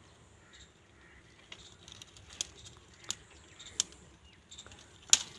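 Dry leaves and twigs crackling now and then as the pile is stepped in and handled, with about five sharp cracks over a quiet background, the loudest near the end.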